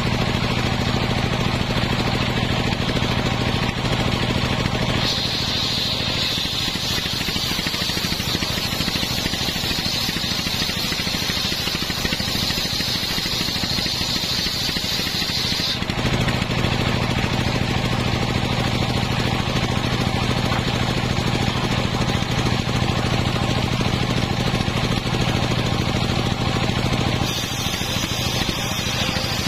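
Engine-driven homemade circular saw bench. The engine runs steadily with the big blade spinning free. From about five seconds in until about sixteen seconds the blade rips through a coconut-wood plank, adding a high hissing whine over the engine. Near the end a new cut begins.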